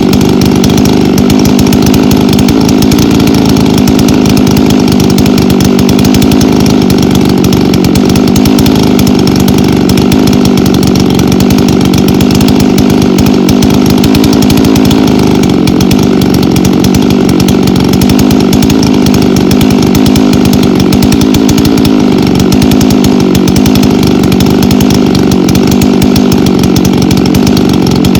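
Chainsaw running at high speed throughout, cutting firewood, with brief sags in its pitch as the chain loads up in the wood.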